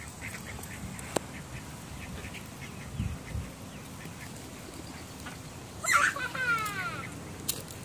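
Ducks quacking: short, soft quacks throughout, and a louder call about six seconds in that falls in pitch.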